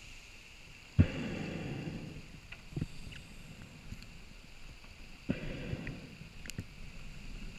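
Scuba diver's regulator heard underwater: two exhalations about four seconds apart, each a sudden gush of bubbles lasting about a second, the first starting loudest. A few faint knocks fall between them.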